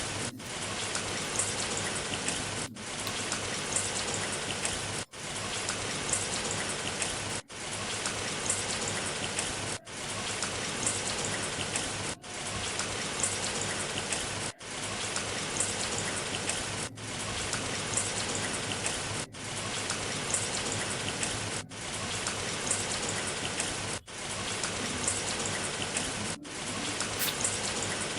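Steady rain falling, a dense even patter of drops. The sound cuts out briefly and returns at very even intervals, about every two and a half seconds, like a short rain recording played on a loop.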